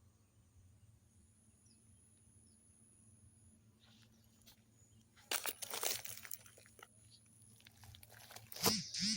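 Quiet for about five seconds, then two spells of irregular crunching and rustling, the first about five seconds in and a louder one near the end.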